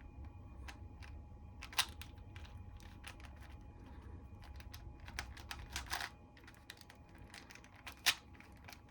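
Irregular plastic clicks and clacks of a 4x4 Rubik's cube's layers being turned by hand, with sharper clicks about two seconds in and about eight seconds in. A low steady hum runs underneath.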